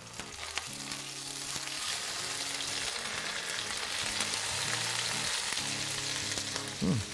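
African pompano fillets sizzling as they fry in oil and wasabi butter in a frying pan. The sizzle builds over the first couple of seconds as the fillets go in, then holds steady.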